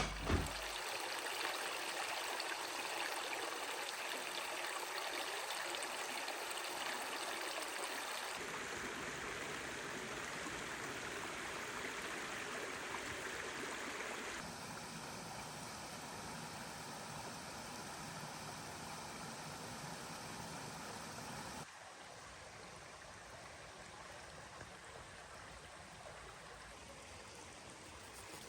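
Water running and splashing steadily, as from a small stream. There are two sharp clicks at the very start, and the sound changes abruptly about 8, 14 and 22 seconds in, getting quieter and duller at the later changes.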